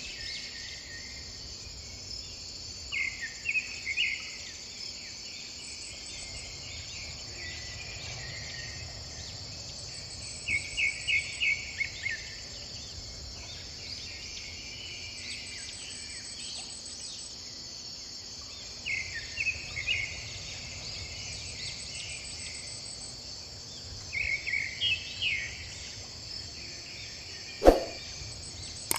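Steady high-pitched drone of insects, crickets or cicadas, with four short bursts of quick repeated chirps over it. A single sharp click near the end.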